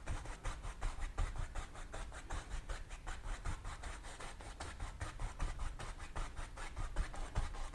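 A paintbrush scrubbing and tapping oil paint onto a canvas: a run of short, irregular scratchy strokes.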